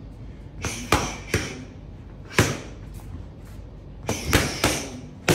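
Punches smacking into boxing focus mitts in quick combinations, about eight sharp hits in clusters of one to three.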